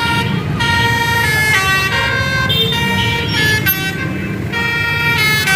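Bus telolet horn: a multi-tone musical air horn playing a tune of held notes that change pitch in steps every few tenths of a second, over a low steady rumble.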